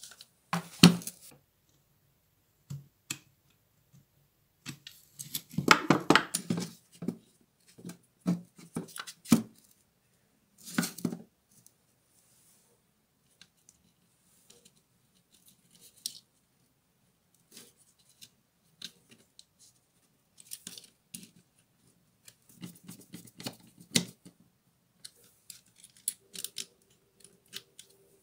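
Small clicks and rustles of hands handling the plastic housing, switch and wiring of an opened angle grinder, irregular and in short clusters, as wires and parts are pushed into place.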